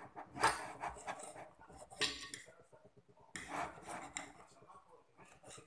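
Table knife sawing through a falafel-filled pita on a ceramic plate: three main scraping strokes about a second and a half apart, with smaller scrapes between.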